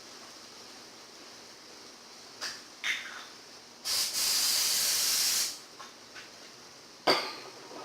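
Aerosol can of brake cleaner sprayed onto a shop towel: one steady hiss lasting about a second and a half, in the middle. A few light clicks come before it, and a sharp knock near the end.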